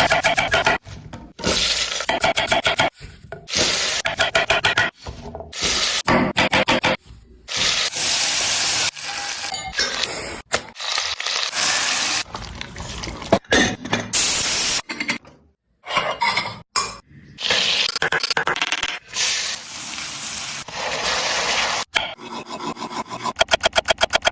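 Cooking sounds of pav bhaji being made: metal utensils scraping, rubbing and clinking against a pan, in short clips with abrupt cuts between them and stretches of steady hiss.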